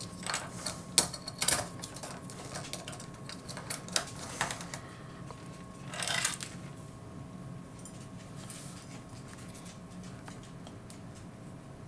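Small plastic clicks and taps as the joints and parts of an Iron Factory EX-26 robot action figure are handled and posed, with a brief rustle about six seconds in. After that only a faint steady hum remains.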